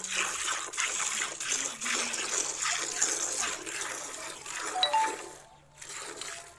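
Milk squirting into a steel pail as a cow is milked by hand: a hissing spray that pulses with each pull on the teats. The squirts die away briefly near the end.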